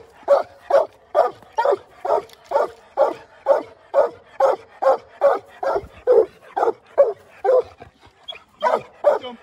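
Young coonhounds, a redbone and a black and tan, barking steadily up a tree at a raccoon, about two barks a second with a short break near the end: the dogs are treeing.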